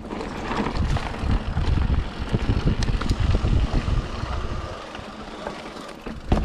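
Mountain bike rolling down a rough dirt trail: tyre rumble with rattling clicks and knocks from the bike, and wind on the microphone.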